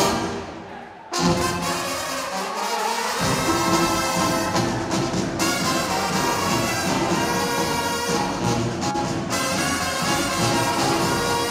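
Romanian Gypsy brass band playing live: trumpets, saxophones, tubas and drums. The music drops away briefly at the start, the higher horns come back in sharply about a second in, and the low brass and drums join about three seconds in.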